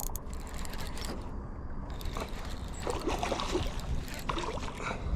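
Wind rumbling on the microphone over water moving against a small fishing boat, with scattered small knocks and clicks from about two seconds in.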